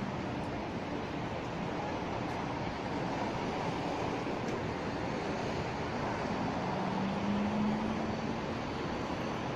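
Vienna ULF low-floor tram pulling slowly into the stop: a steady wash of tram and street noise, with a faint low hum that rises slightly a little past halfway.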